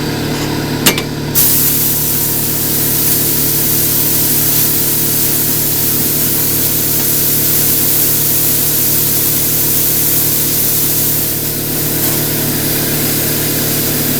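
Electric air compressor running with a steady hum. After a click about a second in, a loud, steady hiss of compressed air blowing into a large balloon joins it and holds until the end.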